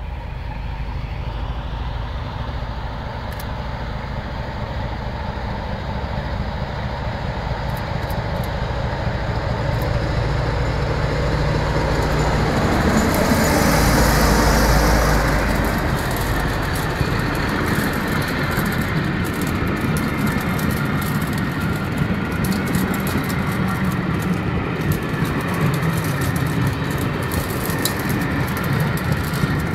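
Railtour hauled by Class 37 and Class 47 diesel locomotives approaching and passing close by, the engine sound growing to its loudest about halfway through. The carriages then roll past with a steady rumble and repeated clicks of wheels over the rail joints.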